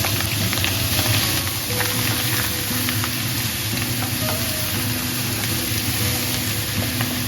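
Nostoc (star jelly) stir-fried in a hot pan with pork belly, garlic and chili: steady sizzling, with the scrape and light clicks of stirring. Soft background music plays underneath.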